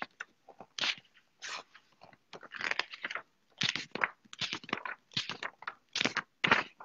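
Pages of a large paper book being flipped in quick succession: a string of short, irregular paper rustles and flaps as the pages are turned in search of one.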